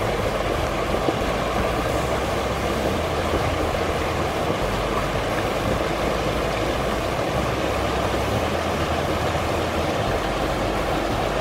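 Small rocky creek splashing and rushing steadily over granite boulders into a pool, a continuous even water noise.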